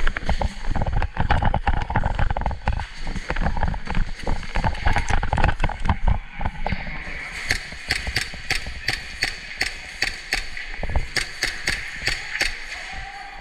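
Quick footsteps and bumps of a worn camera as a player moves over a concrete floor, then from about seven seconds in a string of sharp cracks, a few a second: airsoft guns firing and BBs striking around the arena.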